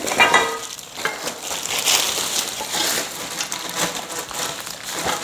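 Plastic and foam packaging wrapped around metal bed-frame parts being handled and pulled at, a steady crackling and crinkling.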